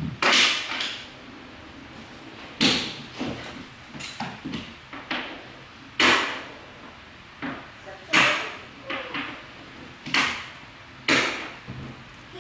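Scissors cutting cloth hockey tape: a series of short, sharp, scratchy snips every one to two seconds, a few much louder than the rest.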